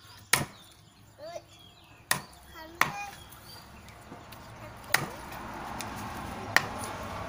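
A knife chopping raw chicken on a thick round wooden chopping block: five sharp chops at uneven intervals.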